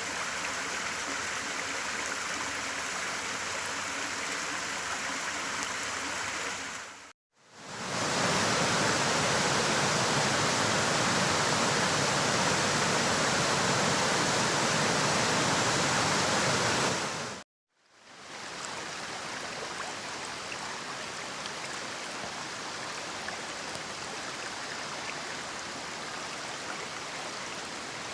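Flowing water of a forest stream and falls, running steadily in three separate stretches cut apart by brief dropouts about seven and seventeen seconds in; the middle stretch is louder and fuller.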